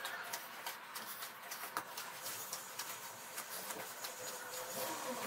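Firm dough being kneaded by hand on a countertop: faint, irregular soft pats and small clicks as the hands push and fold it.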